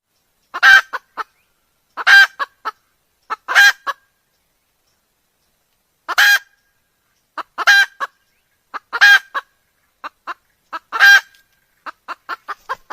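Red junglefowl (wild chicken) calling: a loud call about every second and a half, each trailed by two or three short clucks, with a longer pause after the third call. A quick run of short clucks comes near the end.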